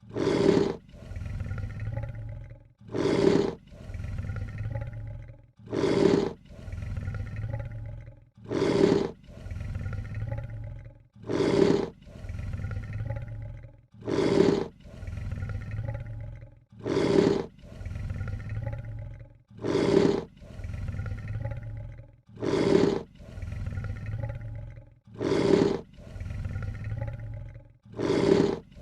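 Lion hissing and snarling: a short, loud, harsh burst followed by a longer, quieter low breath. The same call repeats at even intervals about every three seconds, about eleven times.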